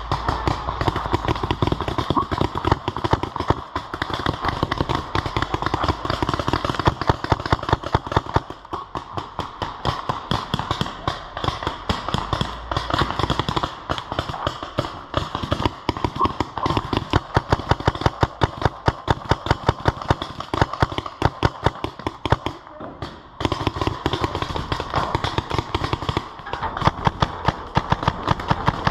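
Paintball markers firing: sharp pops, often in quick strings of shots, with a short lull about two thirds of the way through.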